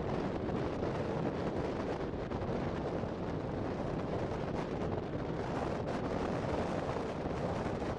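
Wind buffeting the microphone: a steady, even rush with no separate events.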